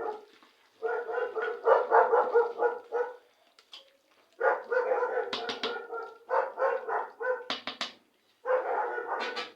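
A dog barking and whining in three bouts of a second or more each, with short pauses between them.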